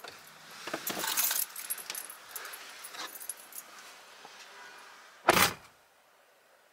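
Keys jangling and rustling, then one loud short thump about five seconds in.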